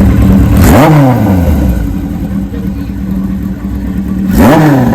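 1978 Kawasaki KZ1000 inline-four, with a Kerker header, idling and blipped twice: a quick rev about a second in and another near the end, each rising and then falling back to idle.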